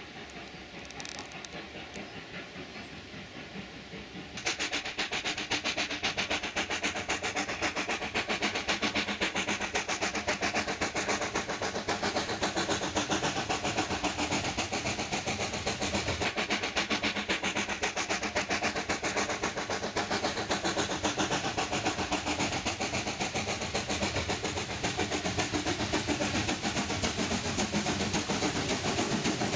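Steam locomotive working hard with a heavy freight train, its exhaust beating in rapid, even chuffs with steam hissing. The sound jumps sharply louder about four seconds in.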